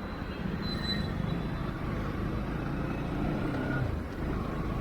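Bajaj Pulsar NS200's single-cylinder engine running as the motorcycle is ridden, with road noise. The engine note climbs and then drops about four seconds in.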